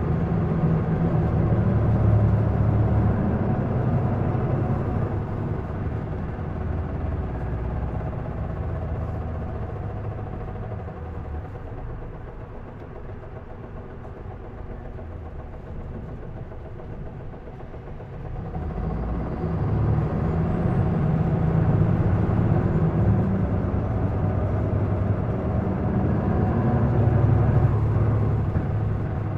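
Isuzu Erga PDG-LV234L2 city bus's diesel engine heard from inside the bus, revving high under hard acceleration. It eases off to a low hum from about a third of the way in, then pulls hard again from about two-thirds in. This bus has developed an odd mechanical noise that the owner says it did not make when new.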